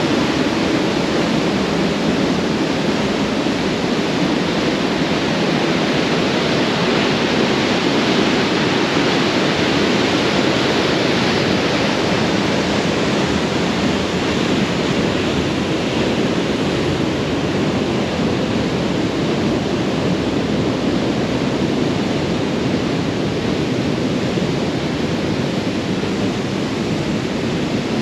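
Radovna river rushing through the narrow gorge: a loud, steady noise of white water over rocks.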